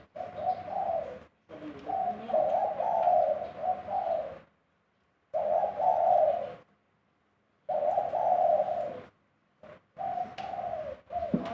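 Spotted dove cooing in repeated phrases, about five of them with short pauses between.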